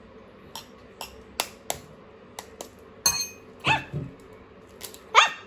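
A fork tapping on an eggshell to crack it: a string of sharp clicks, about eight taps. Near the end come two short high-pitched cries that rise and fall, the second being the loudest sound.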